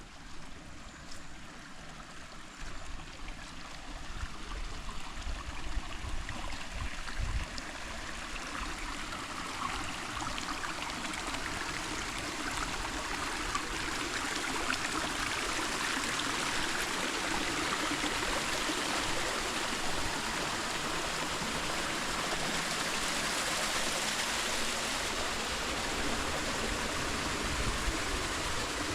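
Creek water flowing, a steady rushing hiss that grows louder over the first dozen seconds and then holds steady.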